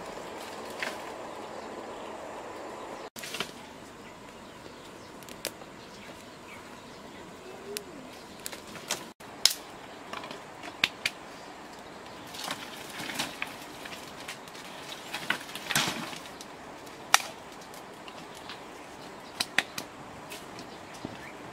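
Firewood being handled and fed into a cooking fire: scattered sharp snaps and knocks of dry sticks, irregular and some much louder than others, over a faint steady background.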